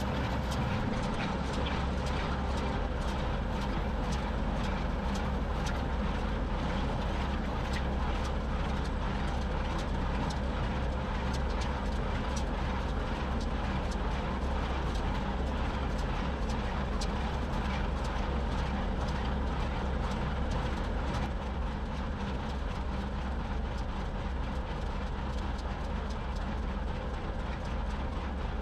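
John Deere 2038R compact tractor's three-cylinder diesel running steadily under load, holding its RPM while powering an IH 440 square baler. The baler's mechanism clatters over the engine with a regular run of knocks.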